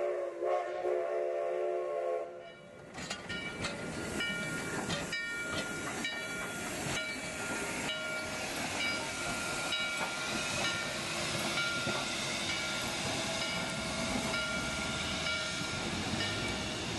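Steam whistle of Durango & Silverton K-36 No. 4-86, a narrow-gauge 2-8-2, sounding a chord that cuts off about two seconds in. Then the locomotive moves slowly past at close range, with steam hissing and irregular clanks and knocks from the running gear.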